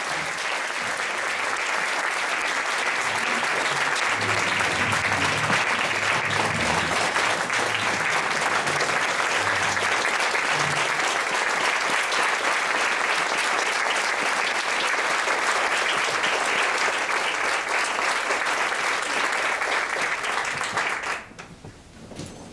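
Audience applauding steadily for about twenty seconds, dying away about a second before the end.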